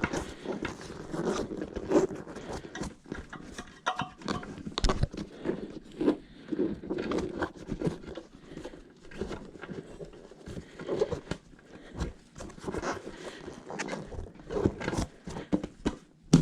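Hands working a rubber bicycle tire and inner tube onto a wheel rim: irregular knocks, taps and rubbing of rubber against the rim.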